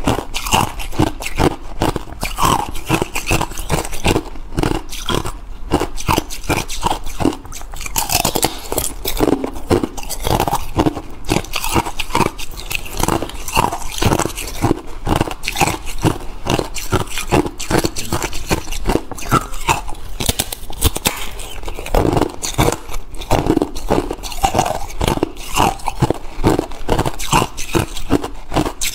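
Thin clear ice being bitten and chewed, a dense, unbroken run of sharp crunches and crackles.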